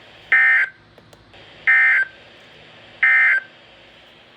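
Emergency Alert System SAME data bursts on NOAA Weather Radio: three short, identical two-tone digital bursts about a second and a third apart. Their shortness marks them as the end-of-message (EOM) code that closes the broadcast alert.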